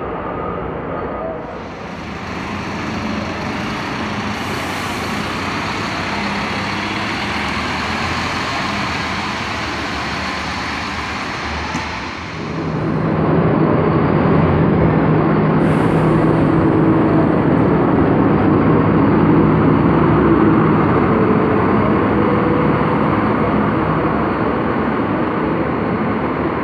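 City bus engine running at a terminal platform, getting louder about halfway through with a steady low drone as the bus gets under way. A brief hiss sounds shortly after.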